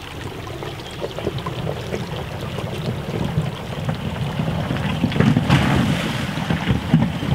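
Chevrolet Colorado ZH2 fuel-cell truck crawling over a rocky creek bed: a low rumble of tyres on rock with small knocks of stone, growing louder as it comes closer. There is no engine note, the fuel-cell drive being nearly silent.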